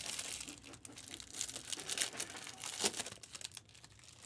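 Trading-card pack wrappers crinkling and tearing as packs are handled and opened, a continuous crackle of many small clicks.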